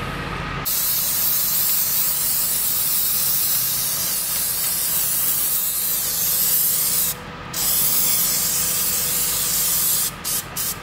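Undercoat spray gun spraying in a long, steady hiss. It breaks off for a moment about seven seconds in, then stops and starts twice more near the end.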